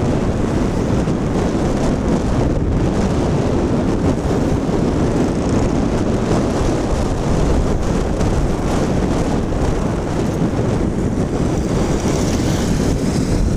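Steady rumble of wind buffeting the microphone, mixed with engine and tyre noise, from riding along a road in the open air.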